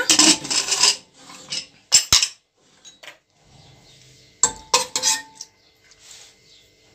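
Pressure cooker lid being worked off, with a scrape and then two sharp metal clacks about two seconds in. A little after four seconds in, a metal ladle clinks several times against the pot, one strike ringing briefly, as it scoops cooked mutton from the broth.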